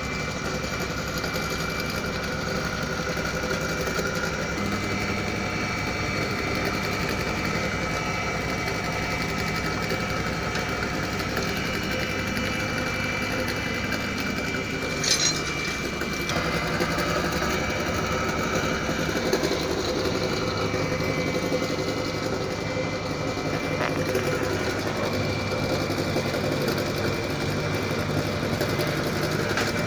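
Electric ceramic tile cutting machine running steadily, its motor giving a constant whirring hum with a few held tones. A brief sharp noise stands out about halfway through.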